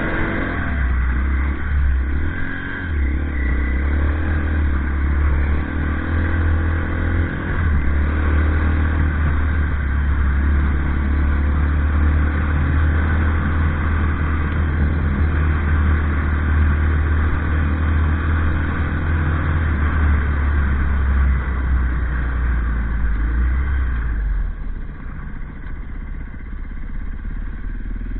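Off-road motorcycle engine running as the bike is ridden along a dirt track, heard from the bike itself, over a heavy, steady low rumble. The sound gets quieter near the end as the rider eases off.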